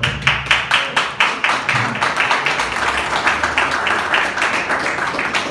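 A small group applauding: quick hand claps from several people running together, with single claps still standing out.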